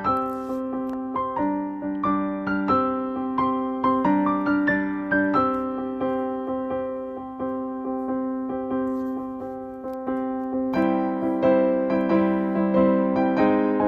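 Background music: a gentle piano or electric-piano melody over sustained chords, growing a little fuller about eleven seconds in.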